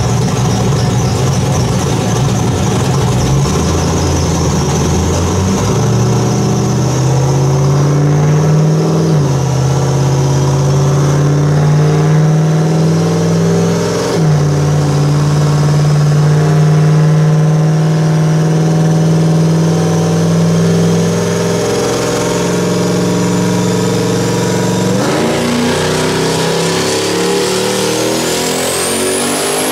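Turbocharged 5.3 V8 in a Mustang running loud and hard, its pitch holding steady and then jumping up or down in steps several times. A whistle rises sharply near the end.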